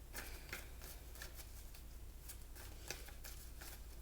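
Tarot cards being shuffled and handled: a run of soft, irregular card clicks and slaps.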